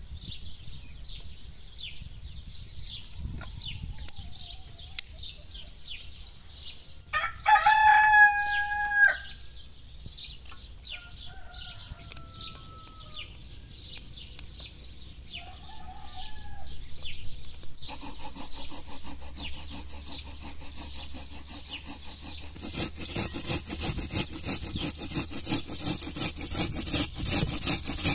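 A rooster crows once about seven seconds in, over light background birdsong. From just past the middle, a vegetable is grated on a box grater, a steady run of quick rasping strokes that gets louder near the end.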